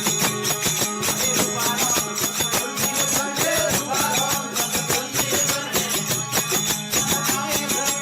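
Desi bhajan folk music: a steady desi veena drone under a wavering melody, with fast, continuous jingling hand percussion keeping the rhythm.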